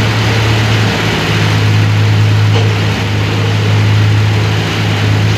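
Yanmar ViO17 mini excavator's diesel engine running at a steady speed, with a strong low hum and a couple of brief dips about one and three seconds in.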